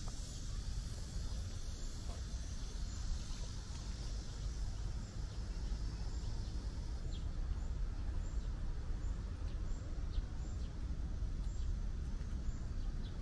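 Outdoor ambience dominated by a steady, high-pitched chorus of cicadas that eases off after about seven seconds, over a low rumble. Faint short chirps repeat at an even pace, a little under twice a second, through the second half.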